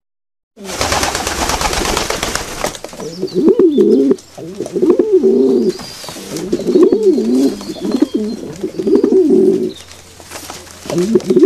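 Pigeons cooing in repeated low, rising-and-falling phrases, with a short pause before the cooing starts again near the end. The cooing is preceded by about two seconds of loud rustling hiss.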